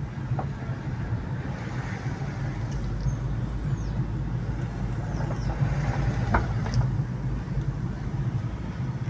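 Car engine and tyre noise heard from inside the cabin while driving, a steady low drone, with a few faint clicks.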